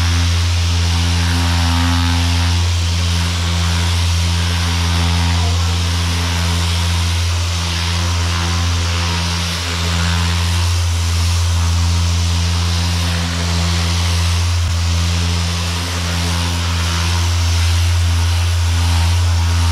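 Power sander running steadily, sanding cured fibre body filler on a car body panel: a constant low motor hum under a broad sanding hiss, dipping slightly a few times as the pressure changes.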